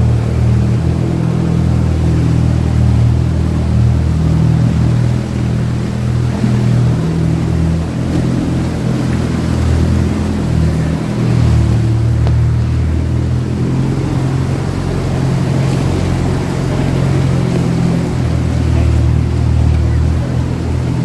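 Diesel engine of a Troller 4x4 running at low revs while crawling off-road, its hum easing off and picking up again a couple of times.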